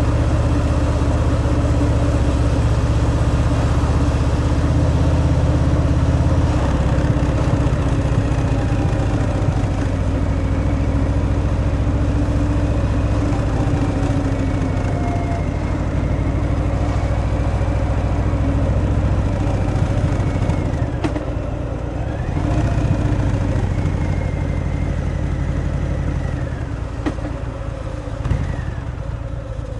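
Harley-Davidson Fat Boy's Milwaukee-Eight 114 V-twin on its stock exhaust, running steadily under way. The engine note eases off about two-thirds of the way through, picks up again, and eases off once more near the end.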